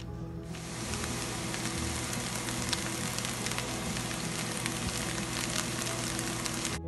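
Food sizzling in a frying pan, a steady hiss full of tiny crackling pops that starts about half a second in and cuts off abruptly near the end.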